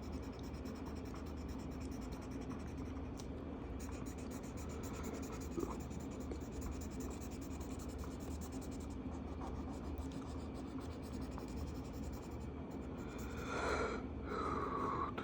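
Marker tip scratching across coloring-book paper in steady strokes, over a steady low hum.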